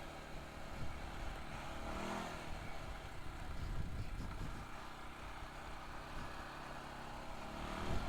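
CFMOTO CForce 500 ATV's single-cylinder engine running while riding a trail. The engine note rises briefly about two seconds in and again near the end, with rolling and wind noise underneath.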